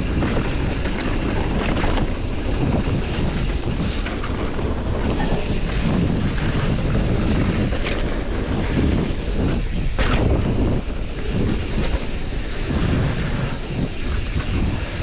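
Steel hardtail mountain bike riding fast down a dirt singletrack, heard from a handlebar-mounted camera: a steady rumble of tyres on dirt and leaf litter with chain and frame rattle, and a few sharp knocks as the bike hits bumps and roots.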